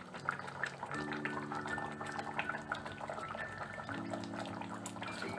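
Rohu fish curry in mustard gravy simmering and bubbling softly in a kadai. Soft background music of held notes plays, changing chord about a second in and again near the end.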